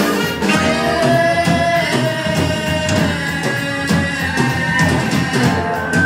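Live band music with accordion, drum kit and guitar behind singing, with long held notes over a steady beat.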